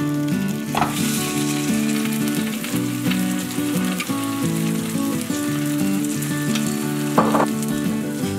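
Egg-soaked bread (pain perdu) frying in butter in a nonstick pan: a steady sizzle that grows brighter about a second in, as a second slice goes into the pan. Soft background music with a slow melody runs underneath.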